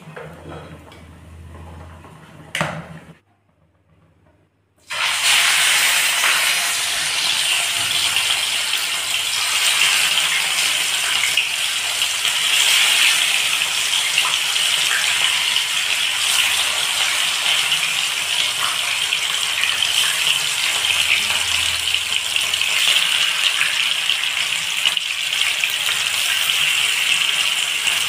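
Rohu fish pieces sizzling in hot oil in a wok, a loud, steady frying hiss that starts abruptly about five seconds in.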